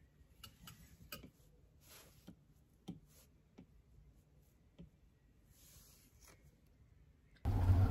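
Faint, irregular taps and clicks of a stylus tip on a tablet's glass screen during note-taking, with a soft scratchy stroke now and then. Near the end it cuts abruptly to much louder, steady vehicle and street noise.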